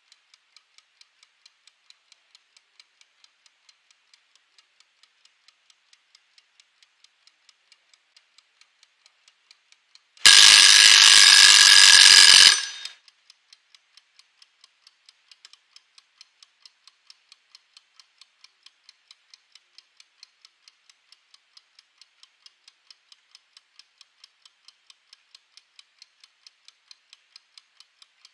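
Mechanical wind-up kitchen timer ticking steadily, then its bell ringing loudly for about two seconds, starting about ten seconds in, to signal the end of the countdown. The ticking carries on after the ring.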